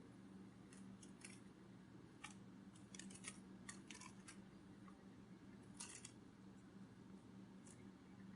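Faint, irregular light clicks and ticks, some single and some in quick clusters, over a low steady hum.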